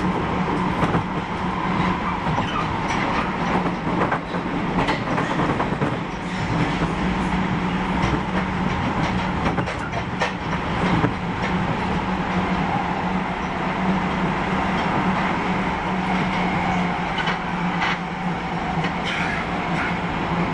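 Osaka Metro 31-series subway train running between stations, heard from on board: a steady hum from the drive with wheels clicking over rail joints now and then.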